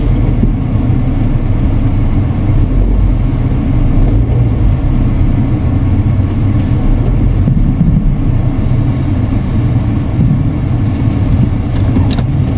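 Steady low road and engine rumble heard inside the cabin of a moving car, with a few faint clicks near the end.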